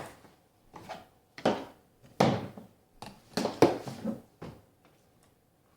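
Plastic Play-Doh tubs and toy pieces being handled and set down on a table: a string of irregular light knocks and taps, about eight in the first four and a half seconds, then it goes quiet.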